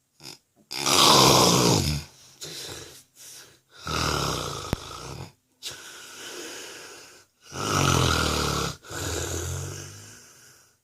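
A sleeping man snoring: three loud snores about three and a half seconds apart, each followed by a softer breath. This is the snoring of a man with sleep apnea.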